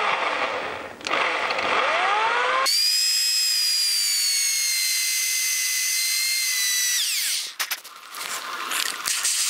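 Drill press boring into a thick metal motorcycle handlebar. The motor spins up, then the bit cuts with a loud, high squeal that sinks slightly in pitch for about four seconds and stops with a downward glide. Light scraping and clicks follow near the end.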